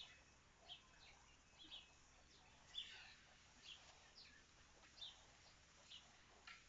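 Faint, short, high chirps, about one a second, some sliding down in pitch, over near silence.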